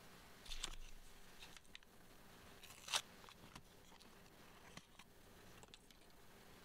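Small foil wet-wipe packet crinkling and being torn open, with one sharp rip about three seconds in, followed by a few light clicks and rustles as the wipe is pulled out.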